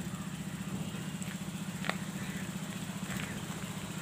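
A steady low hum with a fast flutter, and a single faint click about two seconds in.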